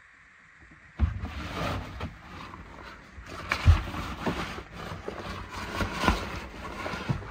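Microphone handling rumble and knocks as the camera is carried through a yacht's cabin: quiet for about a second, then an uneven low rumbling with a few sharp thumps, the loudest about halfway through.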